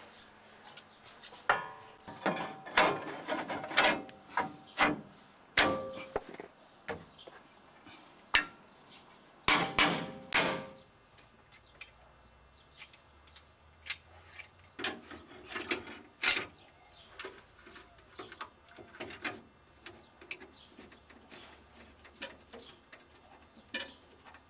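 Steel repair plates and tools clanking and knocking against a Land Rover Series III 88's rusty steel chassis. The sharp metallic knocks come irregularly, some ringing briefly, and are busiest in the first half and again around ten seconds in, then sparser.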